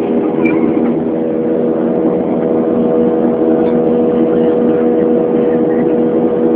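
Jet airliner cabin noise in flight, heard inside the cabin: the steady drone of the turbofan engines and airflow, with a steady hum of several low tones.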